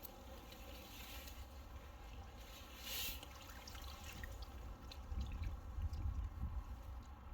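Water dripping and trickling, with small wet squishing sounds and a brief rush of noise about three seconds in, over a steady low rumble.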